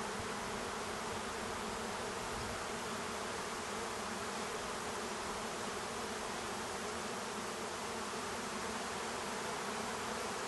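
A swarm of honey bees flying in the air around hive boxes, a steady dense buzzing hum as the swarm moves into a new box.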